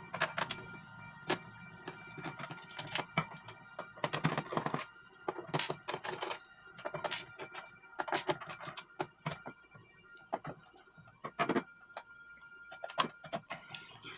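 Screwdriver turning and removing screws from the plastic case of an APC Back-UPS ES 500: irregular clicks, taps and rattles of metal tool and screws against plastic.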